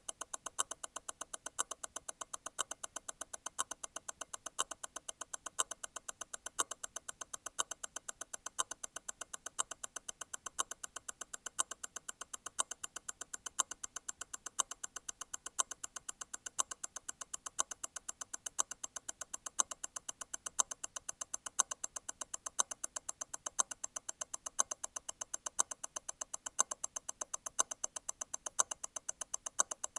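Grand Seiko T0 Constant-force Tourbillon hand-wound movement ticking steadily at 28,800 vibrations per hour, eight beats a second. About every two seconds there is a louder click: the constant-force stop wheel disengaging and striking again.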